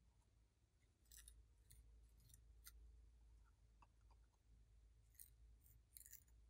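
Near silence broken by a few faint, crisp ticks and scratches, some in quick clusters, of a small makeup brush working against pressed eyeshadow in a plastic palette.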